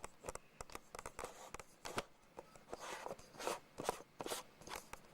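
Handling noise of a wide-angle conversion lens being fitted onto a Canon ES2000 Hi8 camcorder: a run of irregular faint clicks and short scrapes, a few longer scrapes about three to four seconds in.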